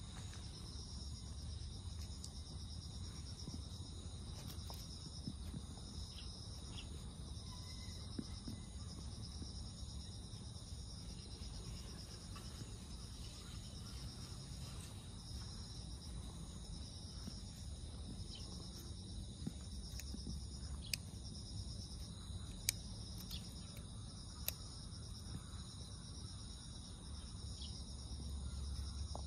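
A chorus of insects trills steadily in several high layers, one pulsing rapidly, over a low outdoor rumble. A few sharp faint clicks come about two-thirds of the way through.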